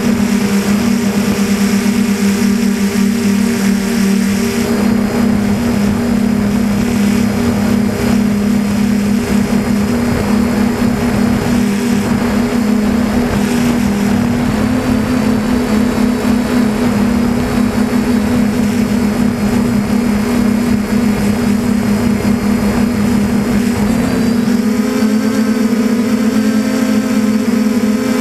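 DJI Flamewheel 450 quadcopter's electric motors and propellers buzzing close to the onboard camera, a steady whine whose pitch shifts with throttle. It steps up and grows fuller near the end.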